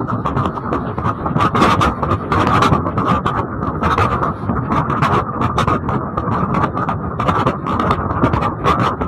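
Road noise of a moving vehicle on a wet road in the rain: a steady rumble and hiss, with many irregular crackles.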